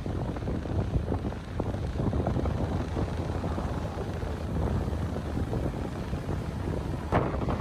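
Wind buffeting the microphone over the rumble of rough surf breaking on the shore, with a brief thump near the end.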